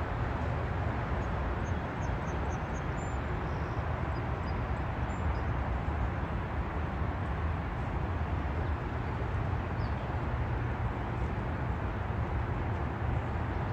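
Steady outdoor rumbling noise, heaviest in the low end and fluctuating, with a few faint high chirps in the first few seconds.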